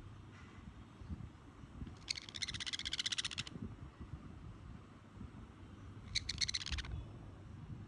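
Small pet parrot giving a rapid, buzzy chattering call twice: a longer one about two seconds in and a shorter one about six seconds in.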